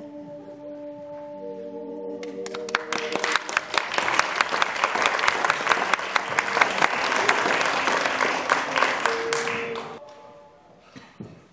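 Audience applauding: the clapping starts about two seconds in, builds, and dies away near the end. Held notes of music sound under the start.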